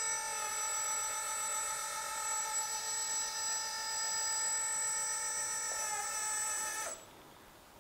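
Hydraulic pump of an RC dump truck running with a steady whine as it raises the tipper bed, then cutting off suddenly about seven seconds in.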